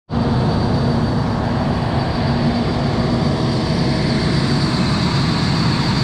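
Steady engine noise from machinery at a concrete pour, with a low hum and a faint high whine running evenly throughout.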